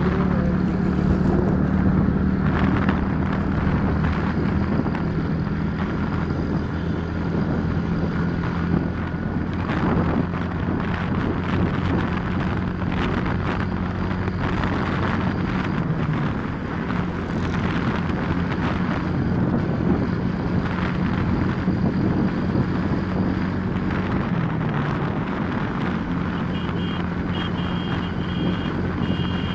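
Small motorcycle engine running steadily at road speed, heard from the bike itself, with wind buffeting the microphone. The engine note dips briefly about halfway through and again later. A run of short, high beeps sounds near the end.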